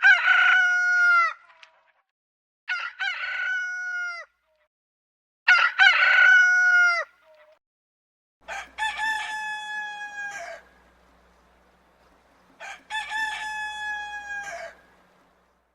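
Rooster crowing: five separate cock-a-doodle-doos of about two seconds each, spaced a second or so apart. The last two have a faint low hum behind them.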